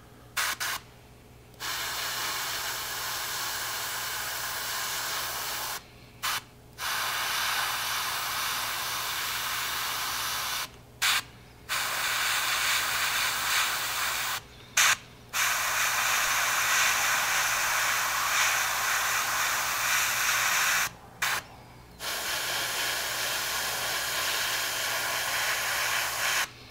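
Gravity-feed airbrush spraying paint in long hissing passes of several seconds each, about six of them, separated by brief pauses, a few of which hold a short puff of air.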